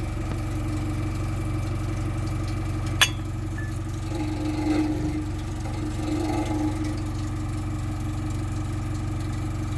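Jaguar Ingenium engine idling steadily, with a newly fitted exhaust damper and no exhaust rattle. A single sharp click comes about three seconds in.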